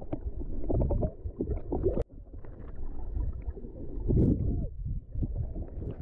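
Muffled underwater rumbling and gurgling as water moves over a submerged camera's microphone, with a sharp click and a brief dropout about two seconds in.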